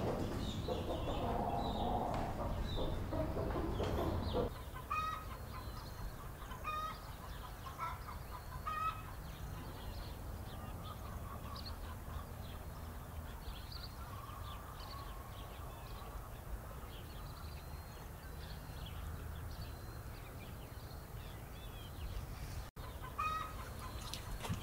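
Chickens clucking, with short calls repeating throughout. The first four seconds or so are louder, over a fuller background noise.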